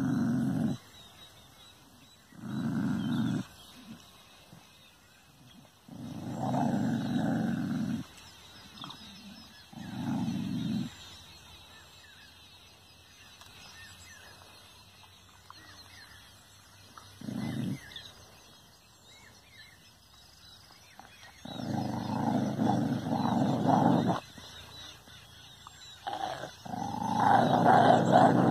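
A dog growling at its own reflection in a mirror, in about seven separate bursts of one to two seconds with quiet gaps between, the longest and loudest near the end.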